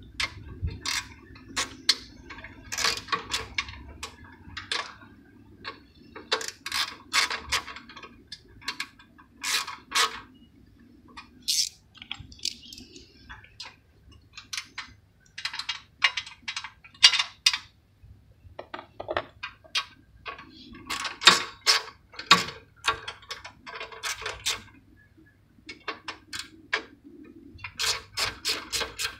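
Bolts being turned out of the metal recoil-starter shroud of a 212cc gasoline engine by hand and with a socket on an extension: bursts of metallic clicking and rattling, with short pauses between them.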